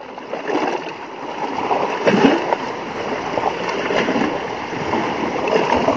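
Water splashing and sloshing among shoreline rocks, an uneven wash of small splashes that grows louder over the first couple of seconds.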